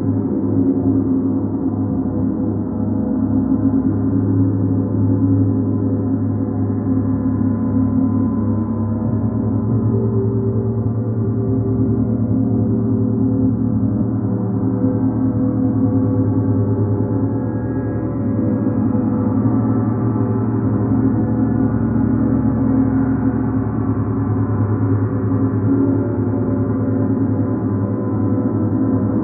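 Large suspended planet gongs played continuously with soft felt mallets, making a dense, unbroken wash of many overlapping low ringing tones that hold a steady level throughout.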